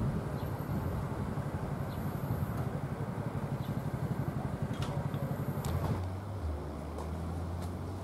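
Low, steady outdoor background rumble that changes abruptly about six seconds in, with no clear single source.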